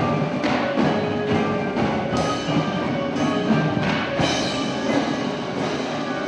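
Indoor drumline playing its show: marching drums striking accents over marimbas and other mallet keyboards holding ringing pitched notes.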